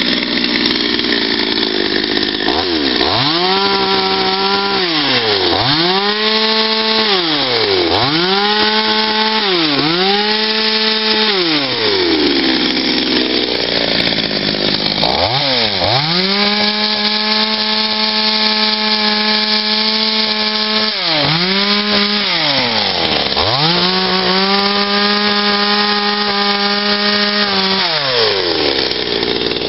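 Two-stroke chainsaw carving into a wooden block, revved up to full throttle and let back down again and again. Short revs of a couple of seconds come first, then longer held cuts of several seconds.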